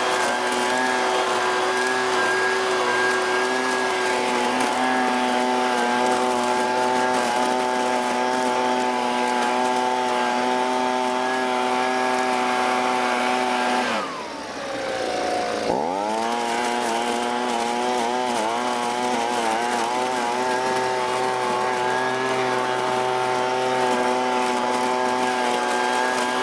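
Husqvarna 125BV blower-vac's small two-stroke engine running at high speed, with the vacuum tube held to dry leaves. About halfway through, the engine speed falls away and climbs back within two seconds, then wavers briefly before holding steady again.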